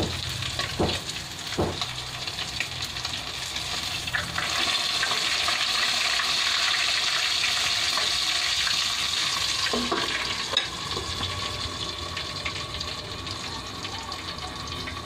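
Chicken pieces frying in oil in a steel wok, a steady sizzle that grows louder for several seconds in the middle. A few metal clinks and knocks from the wok lid and tongs.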